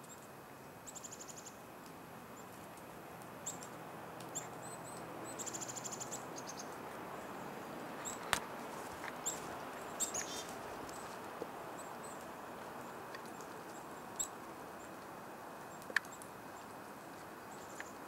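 Small songbirds, black-capped chickadees among them, calling around a seed feeder: scattered high chirps and a few quick runs of evenly spaced notes, over a steady background hiss. A few sharp clicks stand out, the loudest a little before halfway and near the end.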